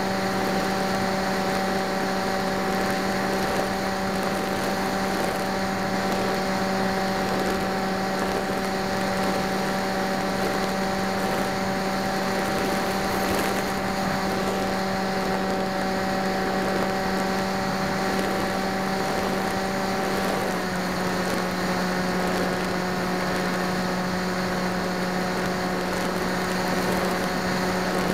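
Electric motor and propeller of an FPV aircraft heard through its onboard camera's microphone: a steady, even whine with a low hum beneath, dropping slightly in pitch about 20 seconds in as the throttle eases.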